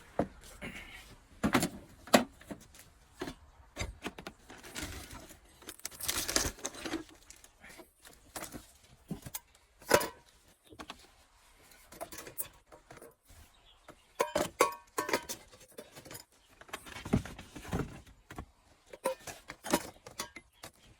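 Irregular clanks, clinks and knocks of tools and metal objects being handled, picked up and set down, with a jangling rattle like keys. Some of the strikes ring briefly.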